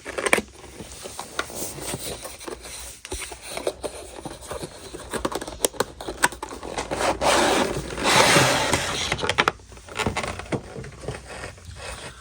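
A cardboard gift box and its packaging being handled and opened: scraping, sliding and rubbing with scattered small clicks, and a longer, louder rub about seven to nine seconds in.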